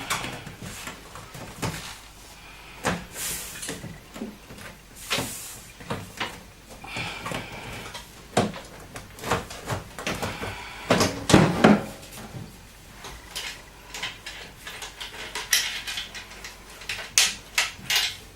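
Side panel of a Sharkoon PC case being pushed and slid onto the case: irregular knocks, clicks and scrapes, with the loudest knocks about eleven seconds in. The panel is hard to fit, and the owner thinks it is slightly bent.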